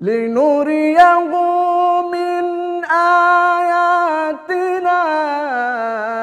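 A man chanting the Quran melodically, drawing out long held notes with ornamented turns in one unbroken phrase, the melody stepping down in pitch near the end.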